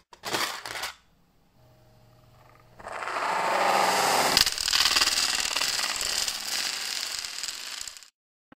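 Loose plastic Lego Technic pieces dropping and clattering onto a hard floor. A brief clatter comes first, then about three seconds in a dense rattle of many pieces landing and bouncing, with one sharper knock partway through. The rattle cuts off suddenly near the end.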